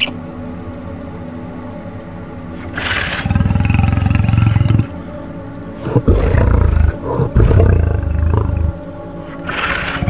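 A large animal roaring: deep, pulsing roars, one about three seconds in, a longer one around six seconds in, and another starting near the end, over steady background music.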